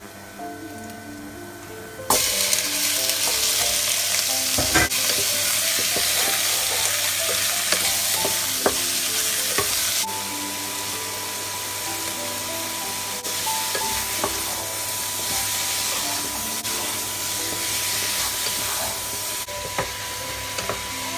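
Raw chicken pieces dropped into hot oil in a pot, setting off a sudden loud sizzle about two seconds in that keeps going while a wooden spoon stirs them, with occasional knocks of the spoon against the pot.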